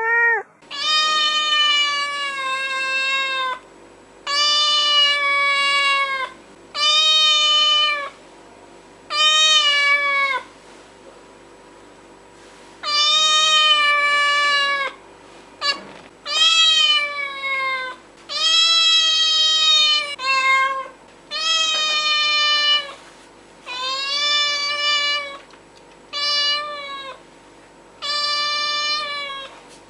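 A domestic cat meowing over and over: about a dozen drawn-out meows of one to two seconds each, separated by short pauses, over a faint steady hum.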